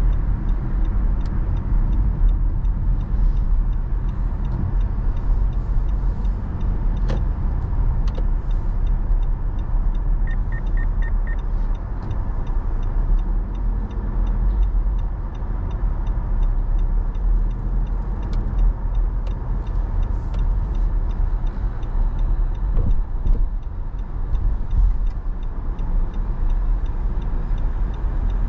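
Car driving, heard from inside the cabin: a steady low road and engine rumble. About ten seconds in there is a quick run of five faint ticks.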